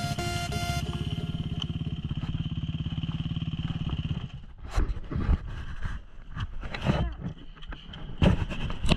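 Trail motorcycle engine running with an even, steady beat at low revs for a few seconds. It then gives way, about four seconds in, to a run of irregular loud thumps and rattles.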